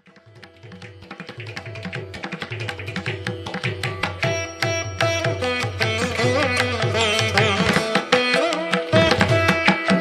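Instrumental background music fading in over the first few seconds, with quick, repeated drum strokes under a sustained melody line.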